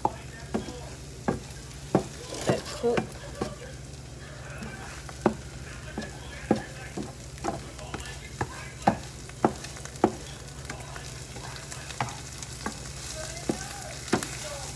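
Scrambled eggs sizzling in a frying pan while a spatula stirs and scrapes them, knocking against the pan in sharp clicks about once or twice a second.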